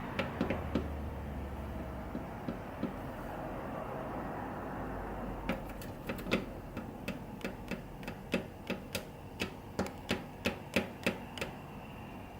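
Light tapping on a budgerigar's cage: a few scattered taps at first, then from about five and a half seconds a run of sharp taps, roughly two to three a second.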